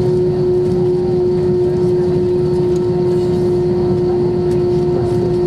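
Airbus A320-232 jet engines (IAE V2500) heard from inside the passenger cabin: a constant rumbling drone with a strong steady hum, unchanging throughout.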